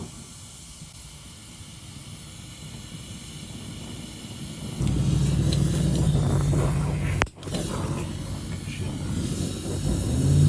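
Gas torch hissing steadily while heating a seized bolt. About halfway through, a louder low steady drone sets in, and it drops out briefly a couple of seconds later.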